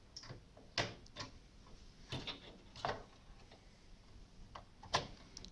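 Irregular sharp clicks and knocks as an expansion card is pushed into a PCI slot on a motherboard and its metal bracket meets the steel PC case.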